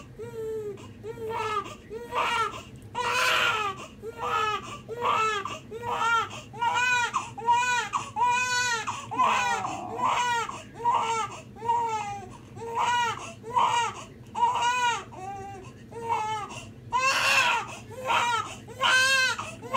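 An infant crying without pause in short rhythmic wails, about two cries a second, with a few louder, shriller cries about three seconds in and near the end.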